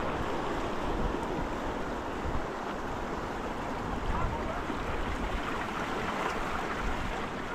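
Ocean surf washing steadily against a rocky shore, with some wind on the microphone.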